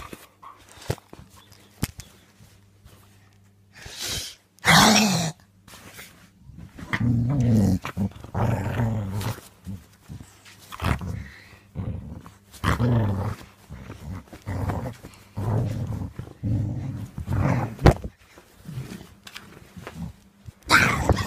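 Dog growling in a run of short growls, roughly one a second, from about seven seconds in, while it bites at a bed cover; one louder, higher call about five seconds in.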